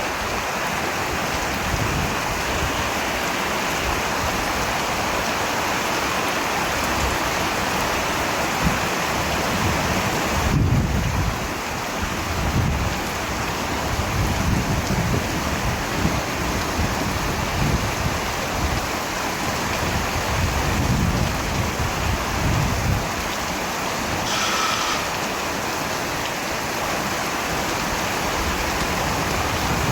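Steady heavy rain with low, rolling rumbles of thunder swelling and fading throughout.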